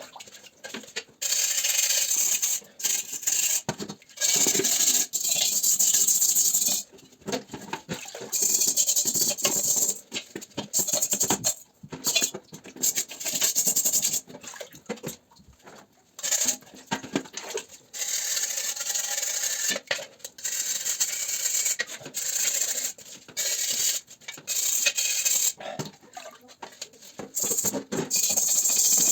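Hand scrubbing on the steel shell of a German M35 helmet during cleaning: runs of rasping strokes a second or a few seconds long, broken by short pauses.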